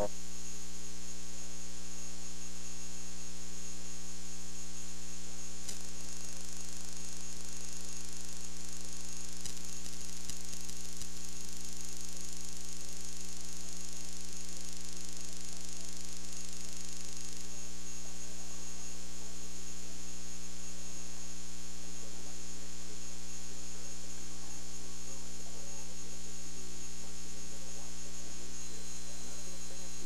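Steady electrical mains hum with a stack of evenly spaced overtones and a thin high whine, at an unchanging level. No commentary or lane sounds come through over it: the programme sound has dropped out, leaving only the hum.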